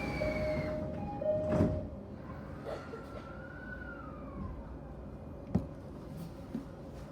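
Yokosuka Line electric train heard from on board: steady tones and a heavy thud in the first two seconds, then the traction motors' whine gliding up and falling back in pitch, with a few sharp clicks over a low running rumble.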